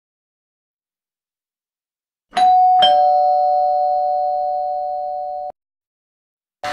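Two-note ding-dong doorbell chime, a higher note then a lower one, struck about two and a half seconds in; the tones ring on for about three seconds and then cut off suddenly.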